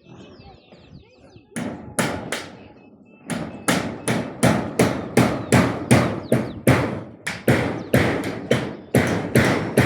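Hammer blows struck in a steady series, a few slow ones at first and then about three a second, quickening near the end.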